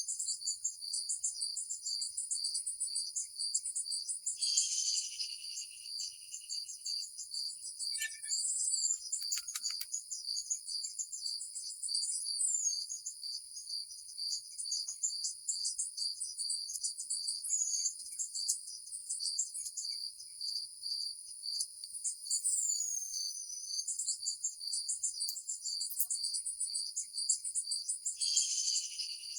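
A chorus of crickets and other insects chirping steadily in a fast, even pulse, with a few short sweeping calls mixed in now and then.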